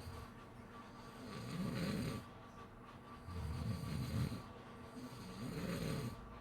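A sleeping person snoring, three low snores about two seconds apart, each lasting about a second.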